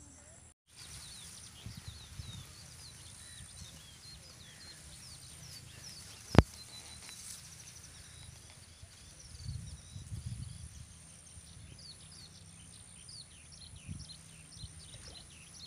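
Many short, quick chirps from small birds keep going throughout over a low rumble, with one sharp click about six seconds in that is the loudest sound.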